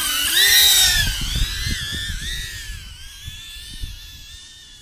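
FPV quadcopter's electric motors and propellers whining. The pitch swells about half a second in, then drops and fades away. The props are bent and scratched, which the pilot says makes them extra noisy and sound gnarly. Low, uneven rumbles of wind on the microphone run underneath.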